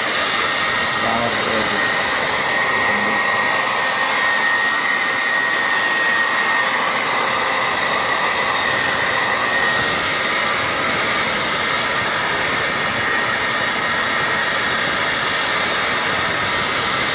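Handheld hair dryer blowing steadily close to the microphone, a loud even rush of air with a faint high whine, heating the adhesive under an iPad mini's glass to loosen it.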